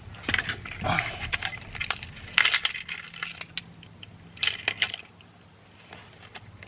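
Metal sockets from a socket set clinking and clattering against each other as they are handled, in several bursts, quieter in the last second or two.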